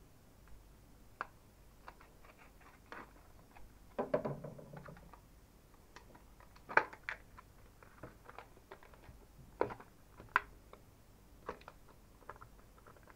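Clear plastic blister pack being handled and pried open: scattered short clicks, snaps and crinkles of the stiff plastic, with a longer crinkling stretch about four seconds in.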